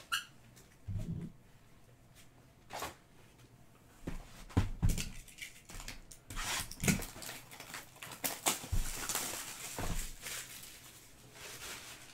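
Hands opening a trading-card pack and handling the cards: scattered crinkles, rustles and light taps. The first few seconds hold only a few soft knocks; from about four seconds in the handling gets busy.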